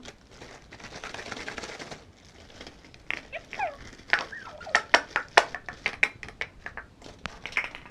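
Rustling, then from about three seconds in a rapid run of sharp clicks and clinks from small hard objects being handled, with a few short squeaky sounds between them.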